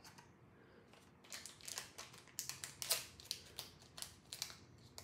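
Small black foil blind-bag packet being torn open and crinkled by hand, a quick irregular run of sharp crackles starting about a second in.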